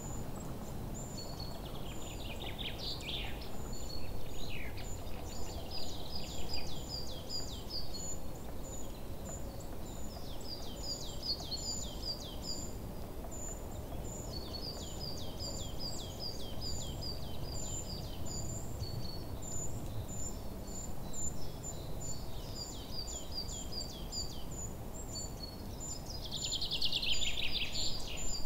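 Outdoor nature ambience: birds singing over a steady low background hum. A high pip repeats about once a second throughout, joined every few seconds by phrases of quick falling chirps, and a louder burst of song comes near the end.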